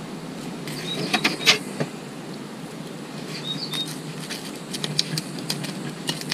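Fillet knife cutting a mutton snapper along the spine and over the rib bones: irregular clicks and scrapes, a cluster about a second in and more near the end, with a few short high chirps.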